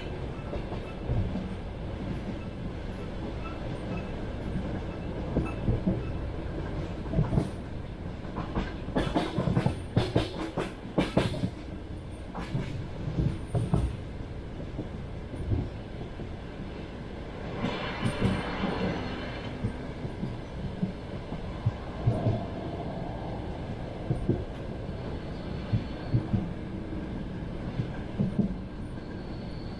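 Passenger train running along the track: a steady rumble with the clickety-clack of wheels over rail joints. A cluster of sharp clacks comes about ten seconds in, and a brief louder rushing noise a little past halfway.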